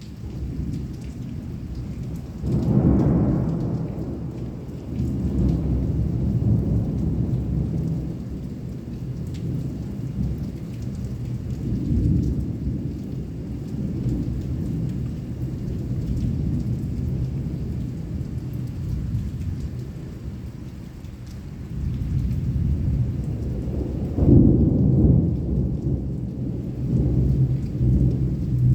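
Heavy rain with rolling thunder rumbling throughout. A loud thunderclap comes about two and a half seconds in and fades over several seconds, and another swells up a few seconds before the end.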